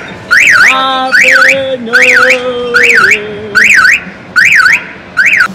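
Electronic alarm siren sounding loudly in quick rising-falling-rising whoops, about one every 0.8 seconds, seven in all. A held, lower horn-like tone runs beneath it and drops slightly in pitch partway through.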